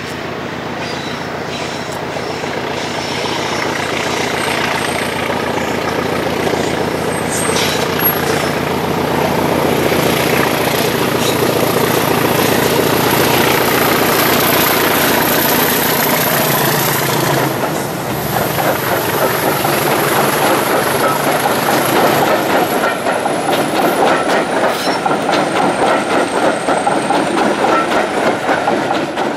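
A Class 20 diesel locomotive, its English Electric engine running with a high whistle over the rumble, approaches and passes close by at about the halfway point. After it has gone, its train of coaches rolls past with a rhythmic clickety-clack of wheels over rail joints, louder and pulsing toward the end.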